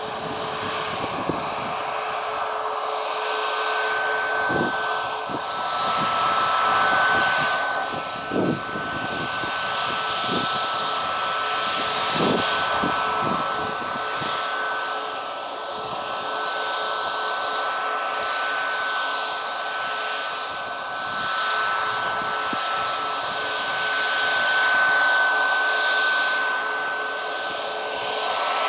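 Boeing 737 MAX 8's CFM LEAP-1B turbofan engines running at taxi power: a steady jet whine with two high tones over a broad rush, gently swelling and fading as the airliner taxis.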